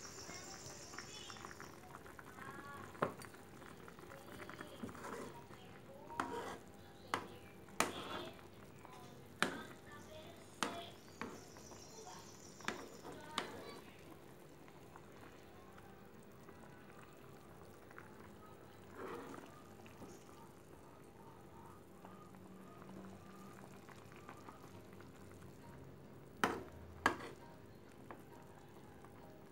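A metal spoon stirring thick rendang in a two-handled metal wok, knocking and scraping against the pan. There is a string of sharp knocks for about ten seconds from a few seconds in, then two more close together near the end.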